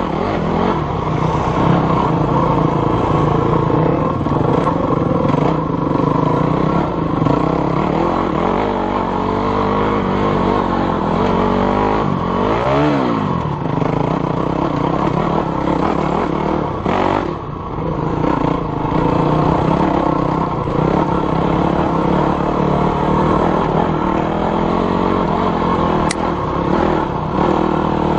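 Dirt bike engine running and revving up and down as the bike climbs over rock ledges, with one quick rev and drop about halfway through.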